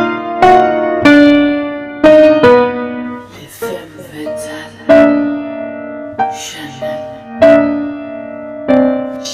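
Background piano music: chords struck one after another, each ringing out and fading before the next, with a couple of soft hissy patches between them.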